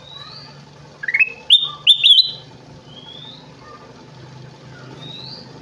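A kutilang emas bulbul singing a short, loud phrase of clear whistled notes that step upward in pitch, about a second in. Single fainter rising whistles come before and after it.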